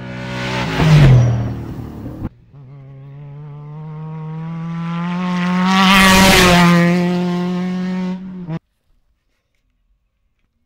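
Off-road race vehicles passing at speed with engines at full throttle: a trophy truck flies by about a second in, its engine note dropping in pitch as it passes. Then a second race vehicle builds up and passes around six seconds in. The sound cuts off suddenly a couple of seconds later and nothing follows.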